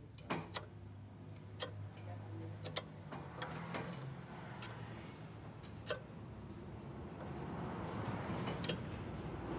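Sharp metal clicks, scattered about one a second, from a tool levering the toothed adjuster wheel through the adjusting slot of a truck's rear drum brake. A rushing noise builds over the last couple of seconds.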